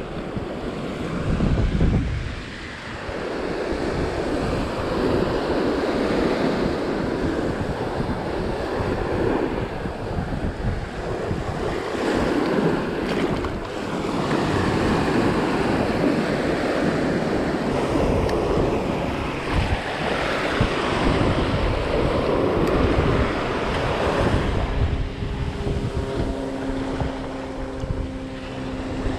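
Surf breaking and washing up the sand, with wind buffeting the microphone in a heavy low rumble that surges hardest about two seconds in. A faint steady hum comes in near the end.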